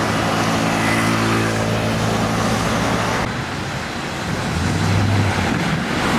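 Road traffic with a Neoplan electric trolleybus pulling away, a steady hum of several pitched tones. About three seconds in, the sound changes abruptly to a trolleybus passing along the road with a lower hum.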